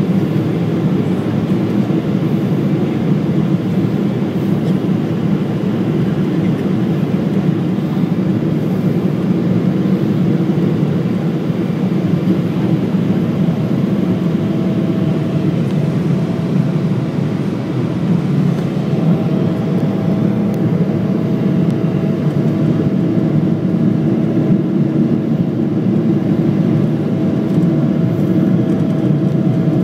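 Airliner cabin noise: a steady low rush of engines and airflow heard from inside the cabin, with a faint steady tone joining about halfway through.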